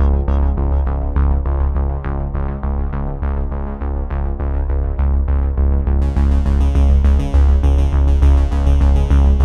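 Synthesizer background music with a steady beat and heavy bass; a brighter, fuller layer comes in about six seconds in.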